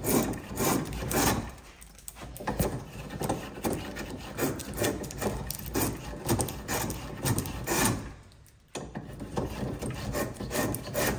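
Metal plough plane cutting a groove along the edge of a board, in a quick run of short rasping strokes, about two to three a second. There is a brief pause about eight seconds in, then the strokes resume.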